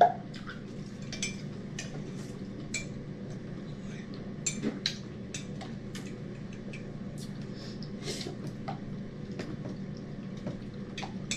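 Spoons and forks clinking against plates and a serving platter while people eat, in scattered, irregular light clicks.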